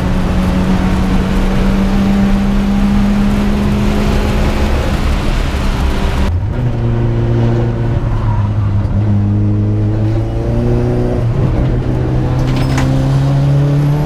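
Car engine running at a steady pitch, then after an abrupt change about six seconds in, a deeper engine note that climbs slowly in pitch as the car gathers speed.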